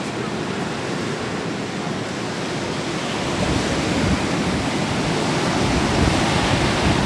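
Ocean surf breaking and washing on a sandy beach, with wind rushing on the microphone; the rush grows louder about halfway through.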